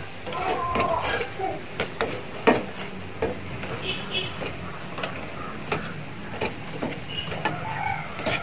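Boondi (gram-flour batter drops) sizzling as it fries in hot oil, with scattered sharp clicks and scrapes of a wire mesh skimmer against the metal kadai as the fried boondi is scooped out.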